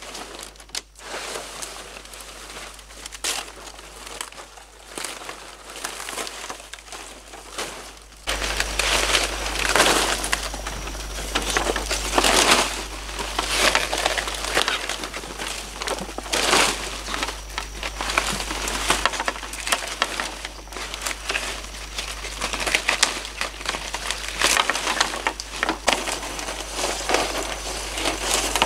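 Large fan-palm fronds rustling and crunching as they are gathered, dragged and stacked, with many short crackles from the stiff leaves and stems; louder from about eight seconds in.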